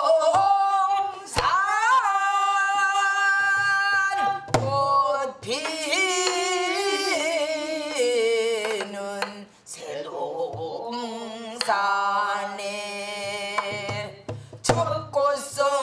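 A woman singing a Korean folk-style song in long, drawn-out notes that waver in pitch, accompanied by a few strokes on a buk barrel drum.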